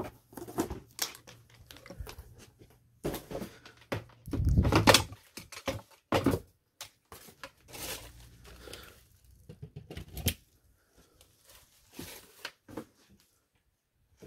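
Handling noise: irregular rustling, crinkling and knocking as a clock radio, its cords and plastic are moved about. A longer, louder rustle comes about four to five seconds in, and a sharp click near ten seconds.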